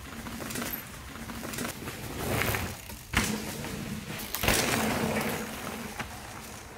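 Mountain bike tyres rolling and skidding over a dry, leaf-covered dirt trail as riders pass, in two rushing swells, with a sharp thump about three seconds in and a smaller knock near the end.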